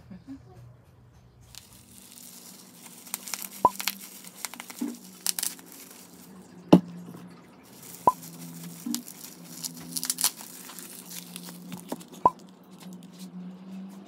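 A plastic bag crinkling and crumpling as it is handled, with a few sharp clicks along the way and a low steady hum underneath.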